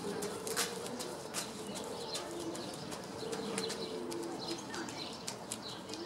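Barn swallow singing: a fast twittering run of short high chirps broken by many dry, sharp clicks.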